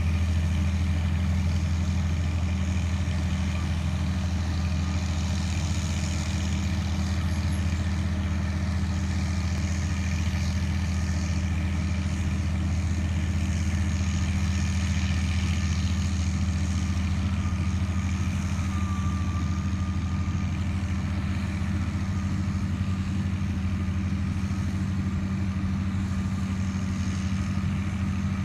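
Crawler dozer's diesel engine running steadily under load, pulling a deep-ripping plough through the soil, with a deep even drone that holds constant throughout.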